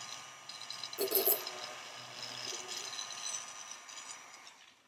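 Small handheld rotary tool running with a steady high whine while a fine bit drills a hole into a model submarine's deck, with a brief rougher grinding about a second in; the motor sound fades away near the end.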